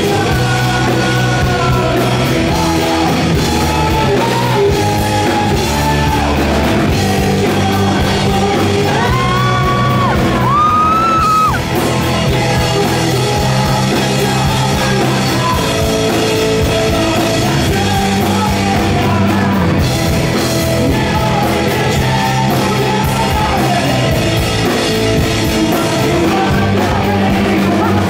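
Live rock band playing: a man singing lead over electric guitars, bass and drums. About ten seconds in, the voice slides up to a high held note and breaks off shortly after.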